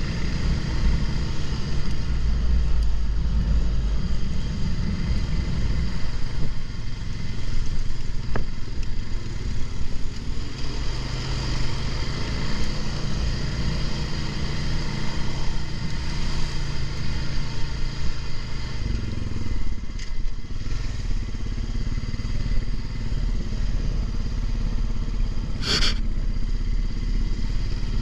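Honda ATV's engine running as the quad rides over rough sandy dirt, with a brief high-pitched squeak about 26 seconds in.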